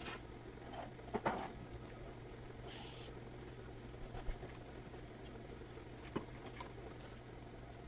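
Quiet room tone with a steady low hum. A few small knocks and rustles come about a second in, near four seconds and near six seconds, and a short hiss comes about three seconds in.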